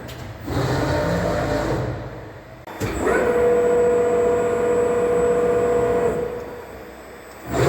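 Safan E-brake servo-electric CNC press brake running through a stroke. A rumbling movement comes first, then a click about three seconds in, then a steady motor whine for about three seconds that fades away.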